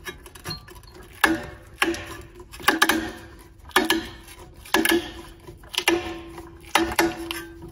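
Repeated metallic clinks, roughly one a second, each leaving a short ringing tone. They come from long-nose pliers working against the metal pad of a floor-sanding edger as the old Velcro disc is twisted and pulled off.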